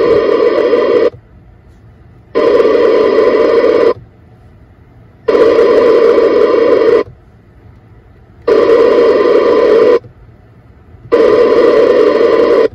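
Radio interference from the hybrid car's electrics coming through an Icom mobile transceiver's speaker on 28.450 MHz FM: a loud noisy buzz that comes and goes about five times, each burst about a second and a half long with short gaps between. The owner suspects the drive computer or other hybrid electronics of making this interference on the 10 m band.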